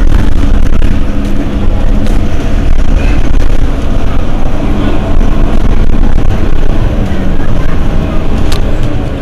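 Mercedes-Benz Citaro city bus engine idling while the bus stands at a stop, a steady low rumble that eases off slightly near the end.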